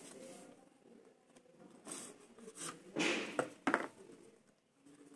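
Hands handling a smartphone's cardboard box packaging: rustling and sliding as the inner tray and the phone case are lifted out, with a few louder scrapes about three seconds in.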